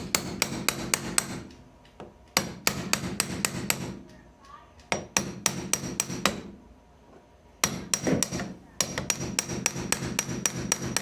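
Sharp metallic taps, about four a second, in several short bursts with pauses between.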